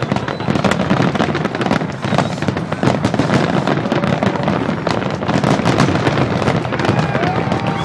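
Fireworks finale: a dense, unbroken barrage of shell bursts and crackling, the reports following one another too fast to count.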